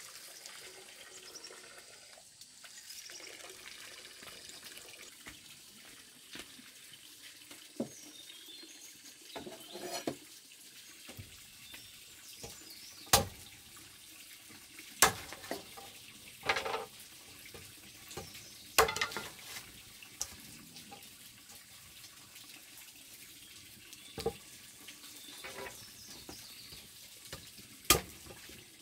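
Water splashing in a basin as small fish are rinsed, then a heavy machete chopping firewood on a wooden block: about half a dozen sharp, loud chops, one to three seconds apart.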